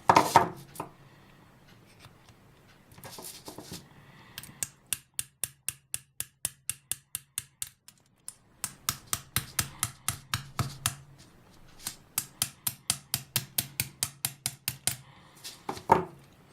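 Rapid light metal taps, about four a second, on a hex driver pushed through a small brushless motor to drive out its top bearing. The taps come in three runs with short pauses, with a louder single knock at the start and another near the end.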